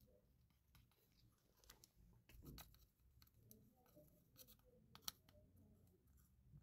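Faint, sparse clicks and light scraping of metal tweezers and needle-nose pliers handling a thin wire lead on a small circuit board. A few sharp ticks stand out, the sharpest about five seconds in.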